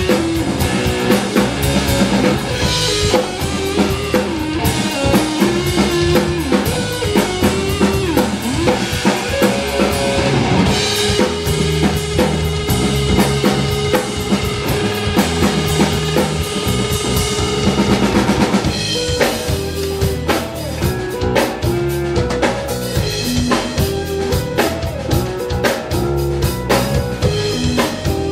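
Live rock band playing an instrumental passage on drum kit, electric guitar and keyboard, with a melodic lead line over a steady beat. A long held note runs through the middle, and the drums come more to the front in the last third.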